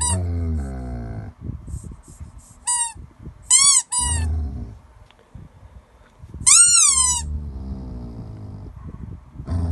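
Snoring-like breathing: low rattling rumbles of about a second every few seconds, with short high whistling squeaks in between, one longer squeak about six and a half seconds in.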